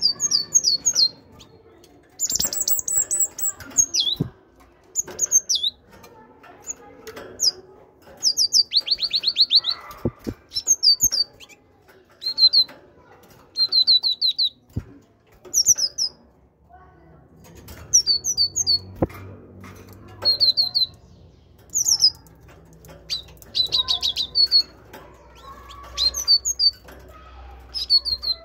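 Great tit singing and calling: groups of short, high, ringing notes every second or two, some run together in quick trills, with a few knocks and wing flutters as the bird hops and flies about its wire cage.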